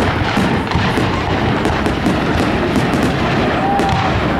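Aerial fireworks launching and bursting: repeated sharp bangs and crackles, several a second, over a continuous rumble of the display.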